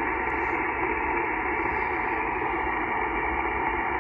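Steady hiss of band noise from an HF transceiver's speaker on single sideband, cut off above about 3 kHz by the receiver's filter, with no station transmitting on the frequency.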